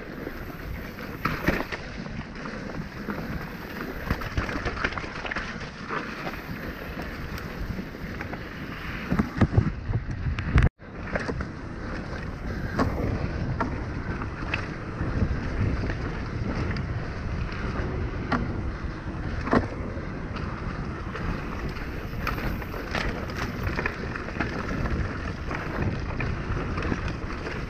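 Mountain bike riding down a rough dirt trail: tyres rolling over dirt, steady wind rushing over the rider's camera microphone, and a constant clatter of bike rattles and knocks over bumps, heaviest around ten seconds in, where the sound cuts out for an instant.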